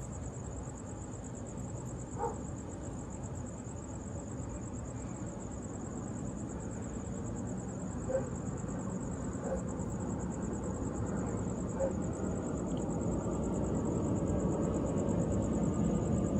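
An insect trilling steadily in a high, fast-pulsing tone, over a low traffic rumble that grows louder toward the end. A few faint short calls come through now and then.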